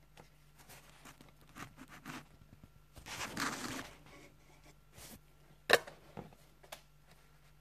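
A praying mantis chewing its insect prey: irregular small crunching clicks, a longer crackling, tearing crunch about three seconds in, and one sharp, louder click near six seconds.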